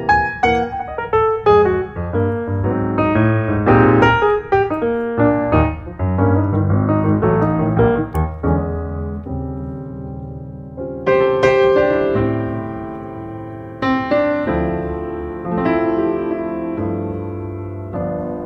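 Background piano music: a quick run of notes, thinning to a few slowly fading notes about halfway through, then fuller chords.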